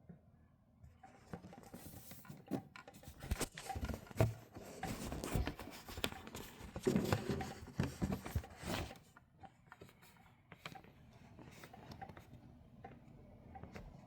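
Irregular rustling with scattered clicks, starting about a second in, busiest and loudest in the middle, then thinning to a few faint ticks near the end.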